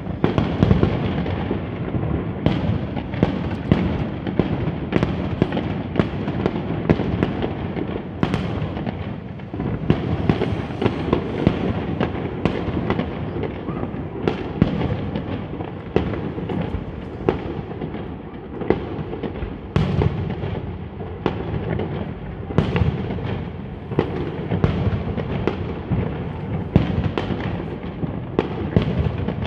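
Fireworks display: a continuous barrage of bangs and booms, with one or two sharp reports a second over a steady rumble and crackle of shells bursting.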